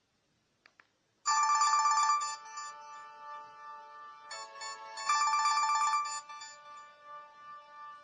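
LG mobile phone ringtone playing, a chiming electronic melody with held notes. It comes in about a second in after a short pause and is loudest at its entry and again about five seconds in.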